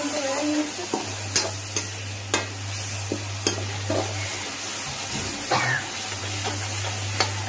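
Onion-and-spice masala with a little water sizzling as it is fried in a metal kadai, while a slotted metal spoon stirs it, scraping and knocking against the pan with a sharp clink about every second.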